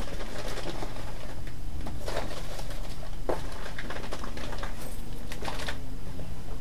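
Rustling and scraping of a cardboard box and its contents being handled and unpacked, in short bursts over a steady low hum.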